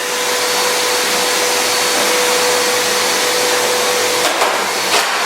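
Dirt Devil upright vacuum cleaner running with a steady rushing whine, and two sharp knocks near the end as it is struck.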